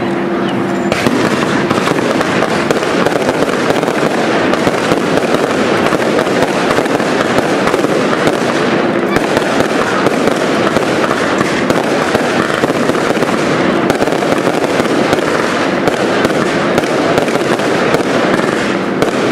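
Fireworks cake batteries firing a dense, unbroken barrage of launches and aerial bursts, many shots a second.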